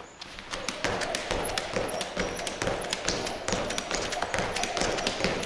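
Rapid, irregular light taps of sneakers on a polished wooden parquet floor as a person does quick footwork in place, starting about half a second in.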